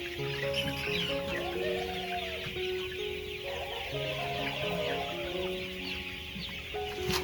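Chickens clucking over background music of slow, held melodic notes, with a sharp click near the end.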